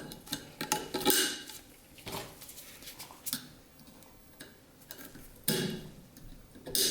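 Light metal clinks and rattles of small parts being handled, as the wire retaining clip for a suspension fork's oil seal is picked up and fitted. A few sharper clinks come about a second in and again near the end.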